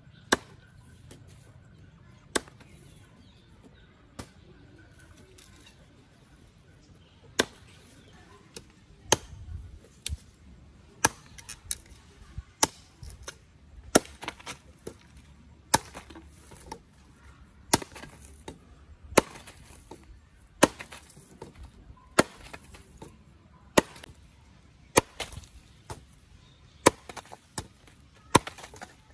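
Machete chopping sugarcane stalks against a wooden block: sharp single chops, a few widely spaced at first, then about one every second, some in quick pairs.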